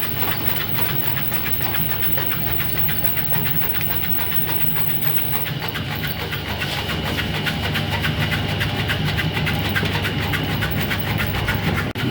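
Porang (konjac) slicing machine running, with a steady motor hum and a rapid, even clatter from the cutter. It grows a little louder from about seven seconds in.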